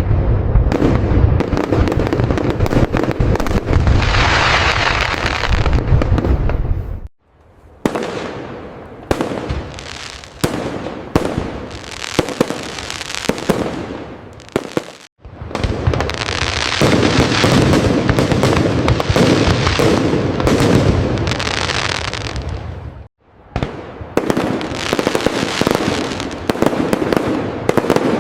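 Fireworks display: a dense run of bursts and crackling over low booms. It cuts off abruptly three times, about eight seconds apart, and each time starts again at once.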